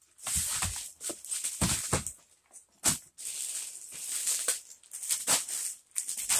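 Plastic-wrapped items being tossed into a cardboard box: crinkling plastic packaging in irregular bursts, with dull thumps as the items land.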